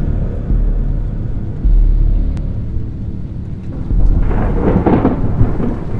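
Thunder sound effect: deep rumbling booms, and a louder crackling crash about four seconds in.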